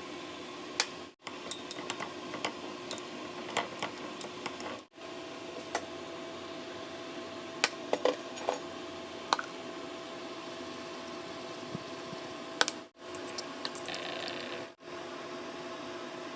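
Light clinks and taps of kitchen utensils against bowls or a pan, scattered and irregular, over a steady appliance hum, broken by a few abrupt cuts.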